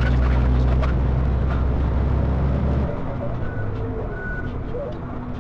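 Semi truck's diesel engine droning low and steady with road noise, heard from inside the cab; the low engine hum drops off about three seconds in.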